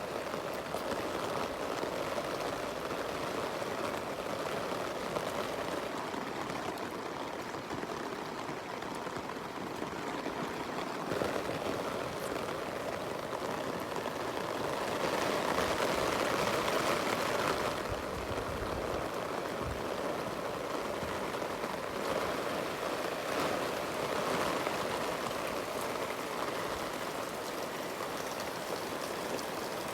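Steady rain falling, with running water mixed in; it swells louder for a few seconds around the middle.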